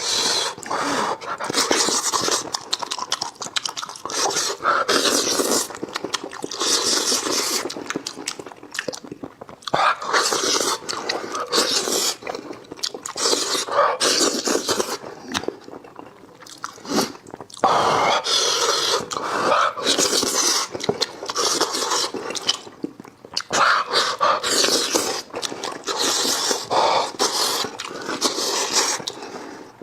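Close-miked eating: a person chewing, sucking and slurping meat from a cooked sheep's head in irregular bursts.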